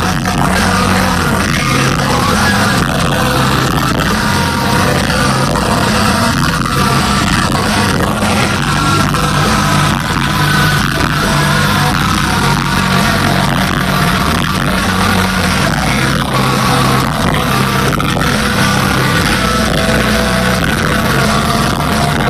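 Industrial rock band playing live at full concert volume, the sound smeared and distorted by an overloaded phone microphone.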